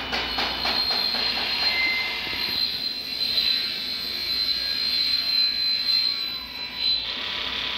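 Factory machinery running steadily with a high whine and hiss. A rapid clicking rhythm of about three clicks a second fades out in the first second.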